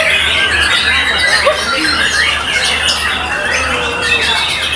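Dense mix of caged songbirds singing and chattering at once, with the varied whistles and chirps of a white-rumped shama among them. A steady low hum runs underneath.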